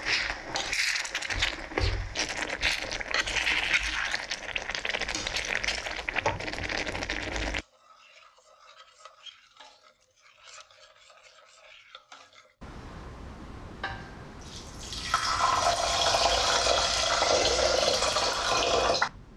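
Diced onion and spices sizzling in a small stainless steel pan while a metal spoon stirs and scrapes, with many sharp clicks. After a sudden drop comes a quieter stretch of faint soft ticks as thick cooked dhal is stirred. Then water pours from a filter pitcher into an empty stainless saucepan, getting louder as the stream fills it, and stops suddenly near the end.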